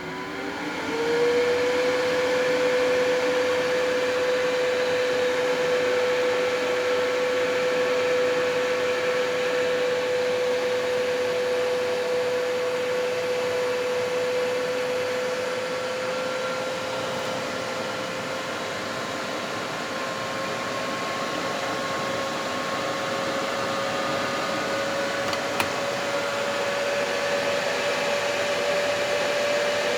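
Computer cooling fans spinning up: a whine that rises in pitch over the first second, then runs steadily with a rush of air, creeping slightly higher toward the end.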